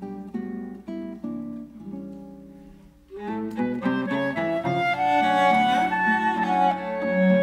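Clarinet, cello and classical guitar trio playing a Colombian bambuco. For about three seconds plucked guitar notes fade away, then the full trio comes in louder with long held notes over the guitar.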